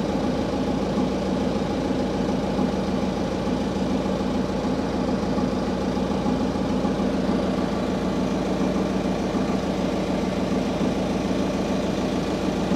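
The boat's generator engine running steadily, a constant even hum; it is the engine that supplies the vessel's lighting and cooking power, while the main engine is stopped.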